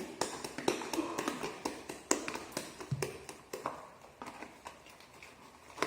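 Fresh homemade slime being squeezed and worked by hand, giving an irregular run of small sticky clicks and pops that thin out and grow quieter in the second half.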